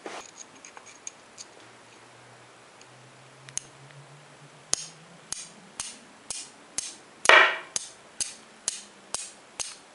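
Handmade carbon-steel firesteel struck against a hand-held stone: short, sharp scraping strikes about two a second, starting about halfway in, throwing plenty of sparks. One strike near three-quarters in is louder and longer than the others; a few faint clicks come near the start.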